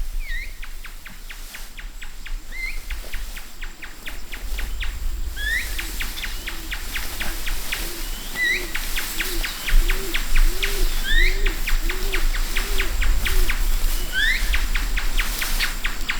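Birds calling in a field: a short rising chirp repeats every few seconds over a fast, even clicking trill. Through the middle a low hooting series swells and then fades.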